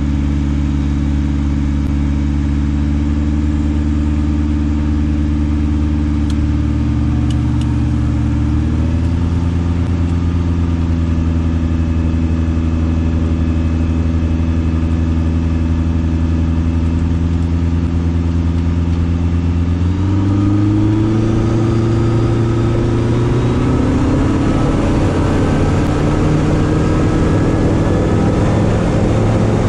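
Kitfox light aircraft's engine and propeller running at low power, the pitch stepping up slightly about nine seconds in. Near twenty seconds in the throttle is advanced, and again a few seconds later, the engine note rising and a rushing sound growing as the plane starts moving across the grass.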